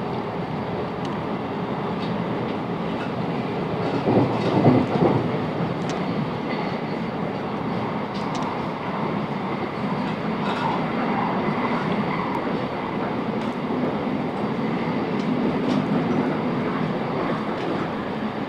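Class 707 Desiro electric multiple unit running between stations, heard from inside the carriage: steady wheel-on-rail running noise with a brief louder clatter about four seconds in.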